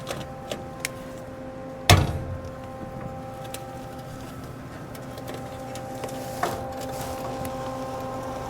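One sharp knock about two seconds in, then a few faint clicks, over a steady hum with a fixed pitch.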